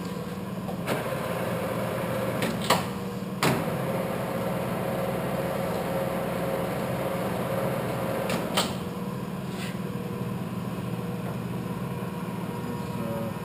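Clausing Colchester geared-head lathe running with a steady hum, its spindle set to 45 RPM. A few sharp clicks come through, about a second in, three more between two and four seconds in, and another near nine seconds in.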